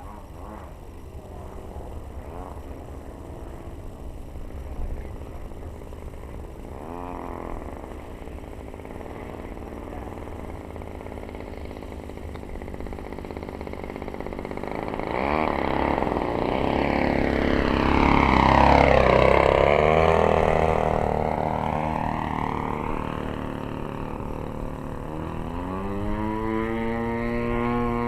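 Desert Aircraft DA-35 single-cylinder two-stroke gas engine of a large RC aerobatic plane in flight, its pitch rising and falling with throttle and distance through the manoeuvres. The loudest part is a close pass about two-thirds of the way through, where the pitch drops as the plane goes by. Near the end the engine holds a steady, strong note.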